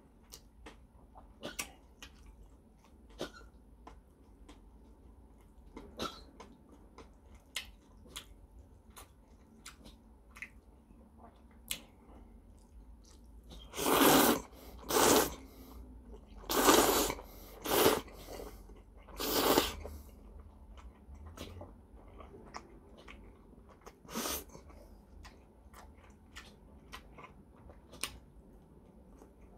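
A person eating noodles with chopsticks: small clicks and chewing sounds, then five loud slurps of jjajangmyeon noodles in quick succession about halfway through, and one more slurp a few seconds later.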